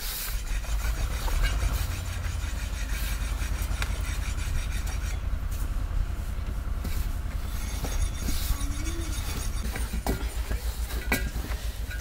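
Hands kneading soft dough in an enamel bowl, rubbing and pressing, with small scattered clicks over a steady low rumble.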